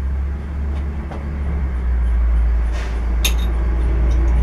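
Turnell & Odell lathe running under power: a steady low motor hum, with a few sharp clicks about three seconds in.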